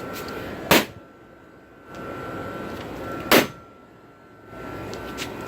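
A broken computer monitor being struck hard twice, about two and a half seconds apart, each blow a sharp bang.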